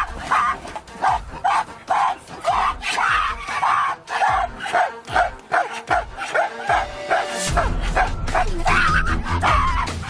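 A rapid string of short barking, yelping animal calls, two or three a second, over background music. A deep bass layer of the music comes in about seven and a half seconds in.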